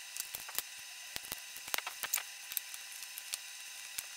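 Plastic modules of a ClicBot modular robot being handled, pulled apart and set down on a glass tabletop: many light, irregular clicks and taps.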